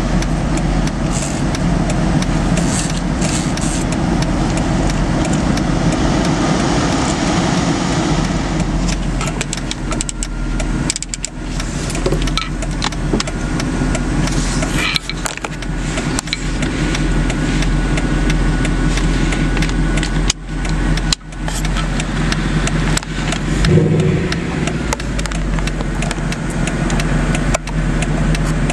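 Steady low cabin drone of a 2009 Mercedes-Benz SL63 AMG with its engine running, heard inside the car, with scattered clicks and rustles close to the microphone and one brief swell about three-quarters of the way through.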